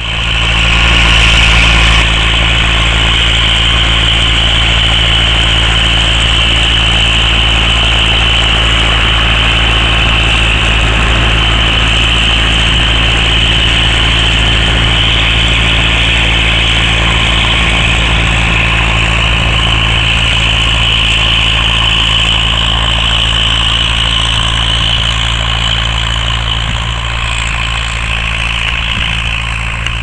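Massey Ferguson 265S tractor's diesel engine running steadily under load while pulling a tillage implement through the soil.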